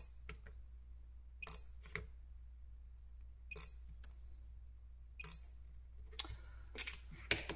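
PCB spot welder running off a lead-acid car battery, firing welds through nickel strip: a series of short, sharp snaps a second or so apart, several in quick pairs, the loudest near the end.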